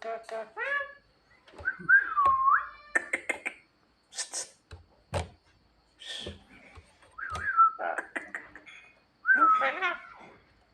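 A Javan myna singing a varied song of whistles, harsh and hissy notes and sharp clicks, with short gaps between phrases, typical of the mimicked calls it has picked up.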